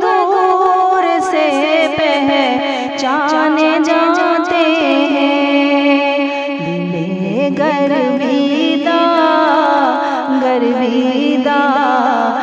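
Naat singing: a voice sings a wavering, ornamented melody, and a lower steady tone joins beneath it about halfway through.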